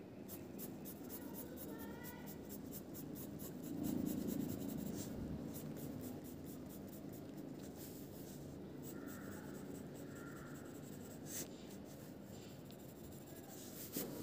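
Graphite pencil scratching faintly on sketchbook paper in rapid short strokes, with a duller rub about four seconds in.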